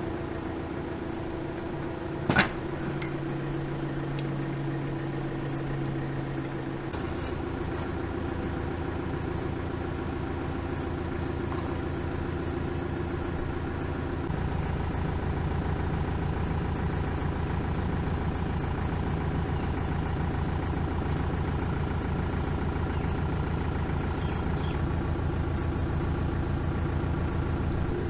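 Steady engine-like mechanical hum that shifts in pitch twice, with one sharp metallic clink about two seconds in as a steel sleeve is fitted over the splined final-drive shaft.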